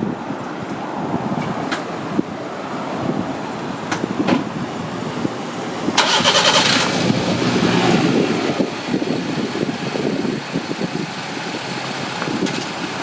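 A car engine running, with a brief burst of rapid clicking about six seconds in.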